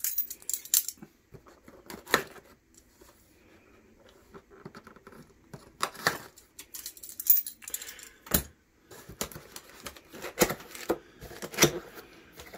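A small knife slitting the packing tape on a cardboard air-rifle box, with short scrapes, taps and rustles of the cardboard as the box is handled and opened, and one sharper thump about two-thirds of the way through.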